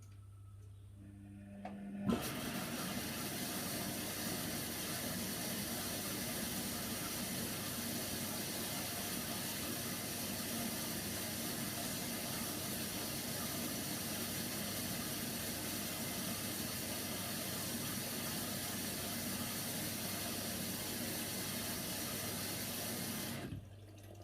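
Hoover Nextra washer dryer taking in water: the inlet valve opens with a click about two seconds in, and water rushes in as a steady hiss for about twenty seconds, then cuts off sharply near the end. A low hum from the machine runs underneath.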